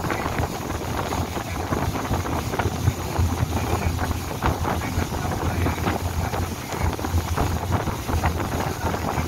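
Long-tail boat's engine droning steadily while the boat is under way, with wind buffeting the microphone in irregular gusts.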